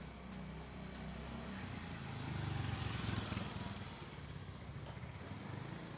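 Small motorcycle riding past close by, its engine growing louder to a peak about three seconds in, then fading away.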